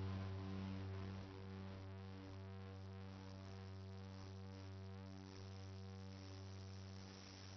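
Soft ambient synthesizer music with sustained drone chords, fading out and cutting off at the end.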